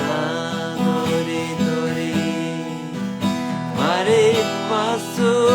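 Acoustic guitar music. A singing voice glides upward about four seconds in and holds a long note near the end.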